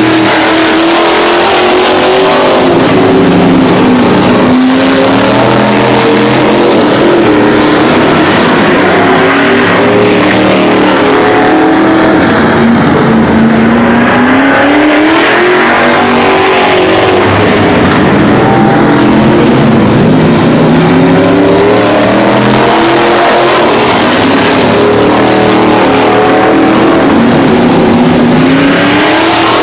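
Street stock race cars running on a dirt track, their engines loud and revving up and falling off again every few seconds as they accelerate and lift.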